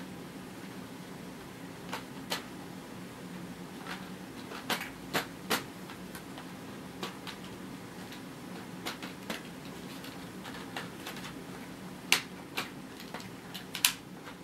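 Hard plastic parts of a Dyson V6 cordless vacuum clicking and knocking as the clear bin is worked back onto the main body, in scattered sharp clicks with a cluster near the end. A faint steady low hum sits underneath.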